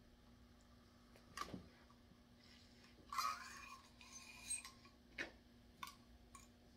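Mostly quiet, with a few light clicks and taps of a metal drinking straw against an aluminium soda can, and a brief sip through the straw about three seconds in.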